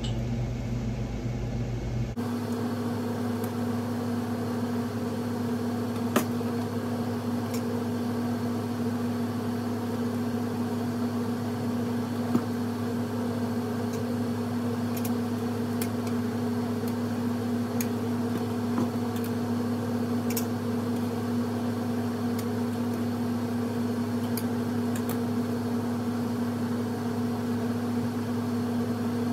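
A steady machine hum, a low drone with a higher tone above it, from a running kitchen appliance or fan motor. A few light clinks sound over it as the ladle and funnel touch the glass canning jars while hot jam is poured in.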